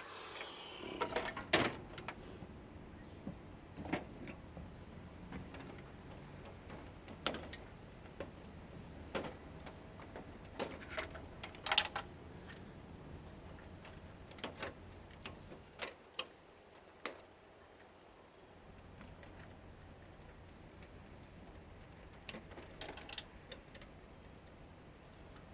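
Scattered clicks and knocks of plastic and metal parts being handled while a CRT television is taken apart, the loudest about a second and a half in and again near the middle.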